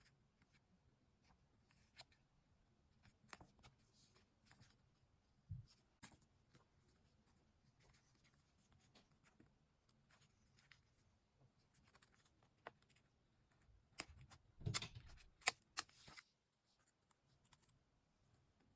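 Quiet handling of paper and stationery: scattered small taps and clicks, with a louder cluster of clicks and rustling lasting about two seconds about three-quarters of the way through.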